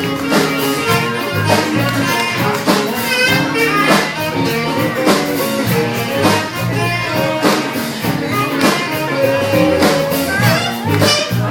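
Live band music: guitar and bass over a steady drum beat, with a wavering melody line on top.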